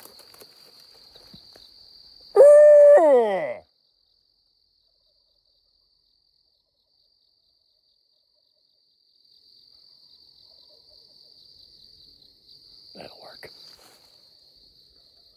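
A single loud howl about two seconds in, held on one pitch and then sliding down, over a steady chorus of insects. Near the end, fainter short calls, fitting distant turkey gobbles.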